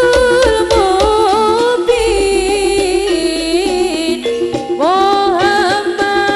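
Live jaranan music: a loud lead melody that slides and bends between notes, over a repeating ensemble pattern, with a deep low rumble about two to four seconds in.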